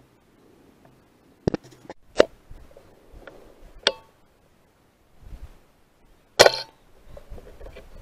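A single sharp crack with a short tail about six and a half seconds in: the shot of a Brocock Bantam Sniper HR .177 PCP air rifle, sub-12 ft-lb, fired at a corvid on a pole and missing. Several fainter clicks come before it.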